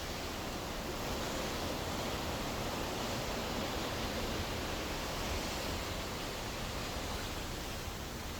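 Steady, even rushing of the sea, with no separate wave breaks.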